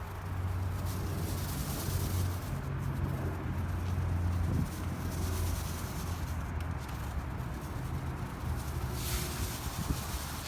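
Electric power-awning motor on a travel trailer running with a steady low hum while the awning moves, the hum dropping off about halfway through.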